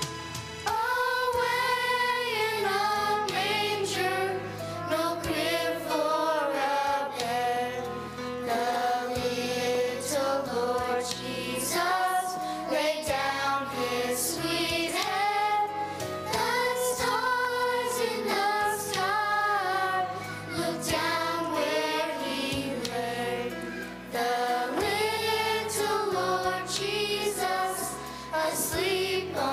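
Children's choir singing a Christmas song with instrumental accompaniment.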